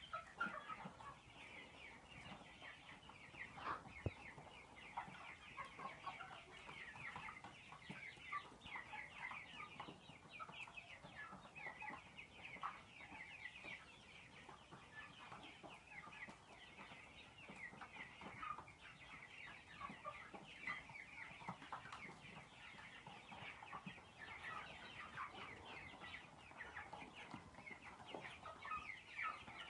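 A flock of young chickens in a brooder, peeping constantly in many overlapping short, high, falling cheeps. A single knock sounds about four seconds in.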